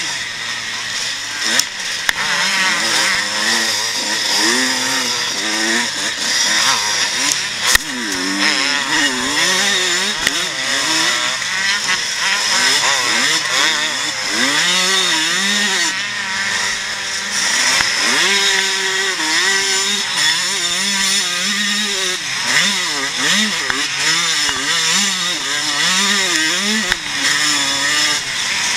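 Onboard sound of a pre-1990 motocross bike's engine under race riding, its revs climbing and dropping back again and again as it accelerates, shifts and backs off, with wind rushing over the microphone. A single sharp knock sounds about eight seconds in.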